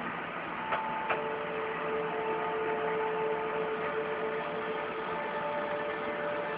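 Two clicks, then a chord of steady electronic tones held for several seconds, with the highest tone dropping out near the end.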